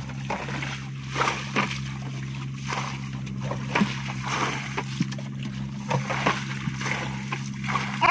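Water poured from a paint pail into a rat burrow in a grassy canal bank, splashing and sloshing, with scattered short splashes over a steady low hum.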